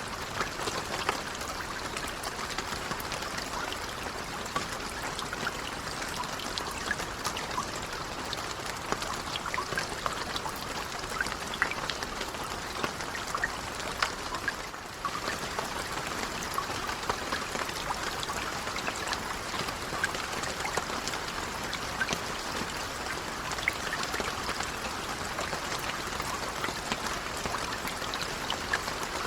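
Steady, gentle rain: an even hiss of rainfall with many separate drops striking close by as sharp ticks. It dips briefly about halfway through.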